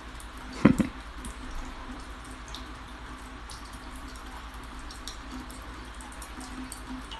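Water dripping and splashing, with one short loud thump less than a second in, over a steady low hum.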